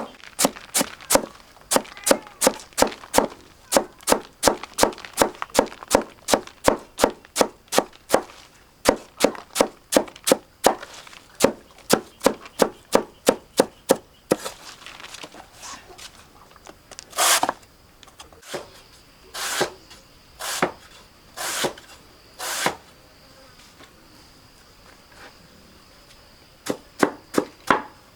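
Rapid knife chopping of purple taro stalks for animal feed, about three even strokes a second. After about fourteen seconds it slows to a few single strokes, then pauses near the end. A faint steady insect drone runs underneath.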